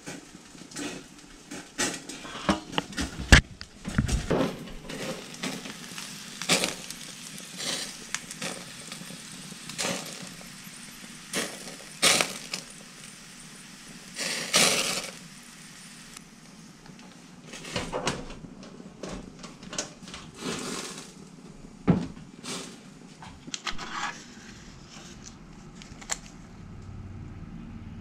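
Kitchen handling sounds: irregular knocks, clinks and clatter of metal cookware and trays being moved, with a longer rushing noise about halfway through.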